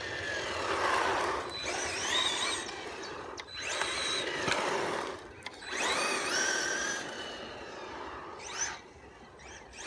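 Maverick Strada RX RC rally car's electric motor and drivetrain whining under throttle, rising in pitch with each acceleration in four or so bursts with short lulls between them. The bearings have been freshly cleaned and greased.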